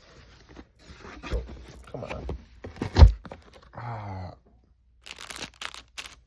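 Packaging of a new computer keyboard being torn open and handled: tearing and crinkling, with a sharp knock about 3 seconds in as the loudest sound, and quick high tearing strokes near the end.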